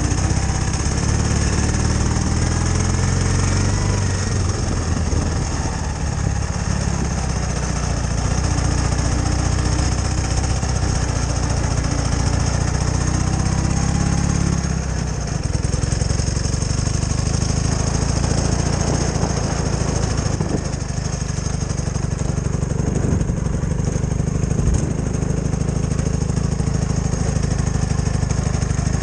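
Ural sidecar motorcycle's flat-twin boxer engine running under way, its note shifting with the throttle in the first half and then holding steadier.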